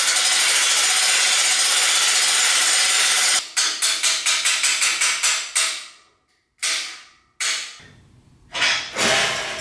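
Hand-cranked cable winch ratchet clattering rapidly for about three seconds, then slowing into separate clicks about six a second, followed by a few single knocks and scrapes of metal.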